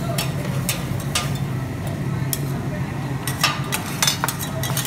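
Metal spatulas clicking and scraping on a steel flat-top griddle, irregular strikes that come thicker about three and a half seconds in, over a steady low hum.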